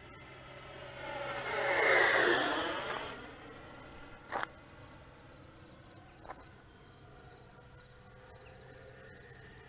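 E-flite Viper 90 mm electric ducted-fan jet passing by: its whine swells to a peak about two seconds in and drops in pitch as it goes past, then fades within a second. A steady high-pitched buzz runs underneath, with a short click about four seconds in and a fainter one later.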